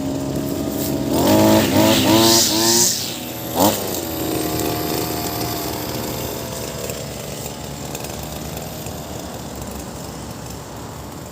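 Ogawa 26cc two-stroke brush cutter engine running, revved up in several quick bursts about a second in and once more briefly a little later, then running steadily.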